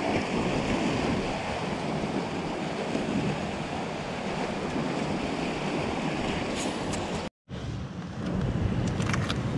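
Ocean surf washing against the rocks below, with wind buffeting the microphone. A little over seven seconds in the sound cuts out for an instant and gives way to quieter background noise with a few sharp clicks.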